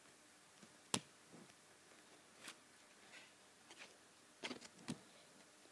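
Faint handling of a Match Attax trading card pack and its cards: a few scattered clicks and rustles, the sharpest about a second in, with a small cluster of them near the end.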